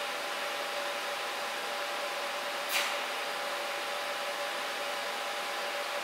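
Extractor fan running steadily: an even rushing of air with a steady two-note hum. A single short sharp sound about three seconds in.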